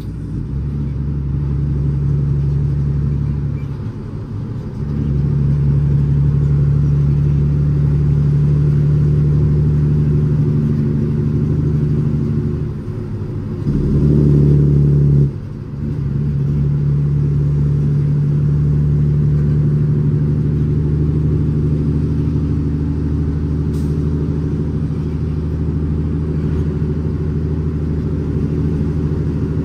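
Cummins ISX 525 hp diesel engine of an International ProStar dump truck, heard from inside the cab, pulling steadily under a full load of gravel. The engine note drops briefly about four seconds in. It dips again around thirteen seconds, swells louder for a moment, then dips once more before settling back to a steady pull.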